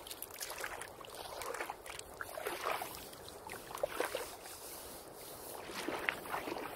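Water splashing and sloshing in irregular bursts.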